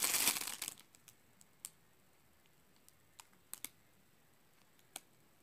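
Clear plastic packaging crinkling in the hands, stopping under a second in. Then a few faint, scattered clicks and ticks as the packaged toy is handled.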